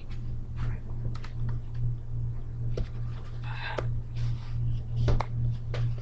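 Handheld camera handling noise: scattered light clicks and a brief rustle about three and a half seconds in, over a steady low hum that swells and fades about twice a second.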